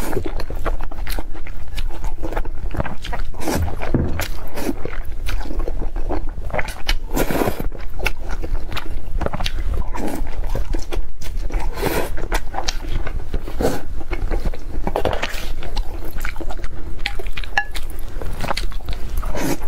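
Close-miked eating sounds: chewing and biting into food, a dense run of irregular short clicks and crackles.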